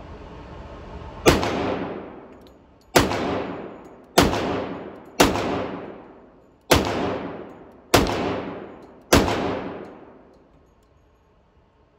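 Seven single shots from a .45 1911 pistol on an indoor range, fired slowly about one to one and a half seconds apart, each crack followed by a long echoing tail.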